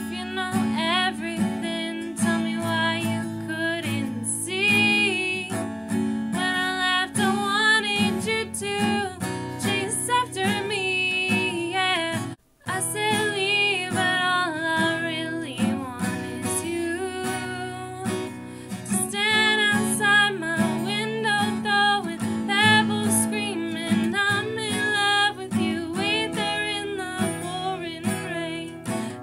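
A woman singing to her own strummed acoustic guitar. The sound cuts out for a split second about halfway through.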